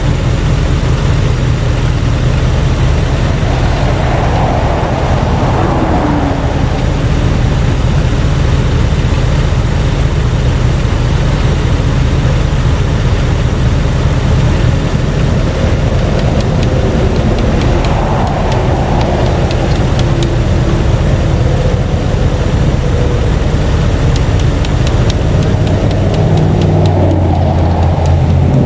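Steady interstate traffic noise with vehicles passing at speed. Three of them swell up and fall in pitch as they go by: one about five seconds in, one midway, and one near the end.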